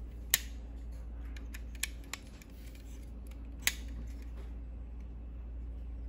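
Plastic parts of a Megatron transforming action figure clicking and snapping as they are moved into jet mode. Several sharp, separate clicks come in the first four seconds, the loudest just after the start, over a steady low hum.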